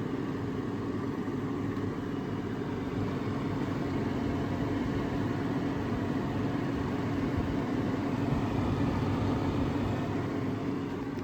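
GE GTS18KCPERBB top-freezer refrigerator running: a steady hum with a low tone, swelling a little in the middle.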